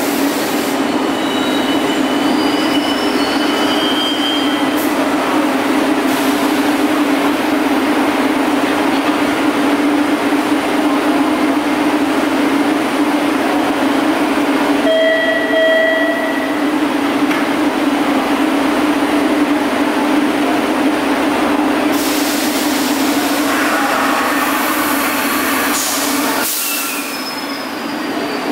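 Boston MBTA Red Line subway train in an underground station, running with a steady electrical hum under rail noise. Thin high wheel squeals come near the start, and a short set of steady tones sounds about halfway.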